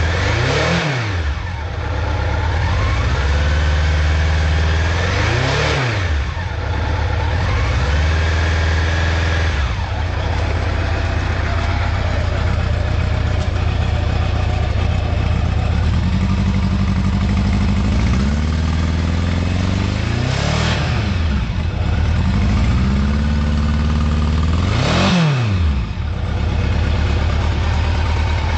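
Honda CB750's inline-four engine idling through its chrome exhaust and blipped up and back down several times. There are four sharp blips, about a second in, near six seconds, around twenty seconds and around twenty-five seconds, with gentler rises between them.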